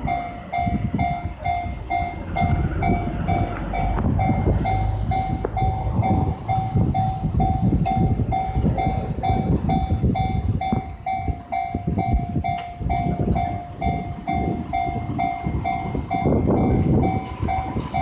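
Japanese level-crossing warning bell ringing in an even pulse about twice a second, over the loud rumble of a JR 415 series 1500-subseries electric train running past on the rails.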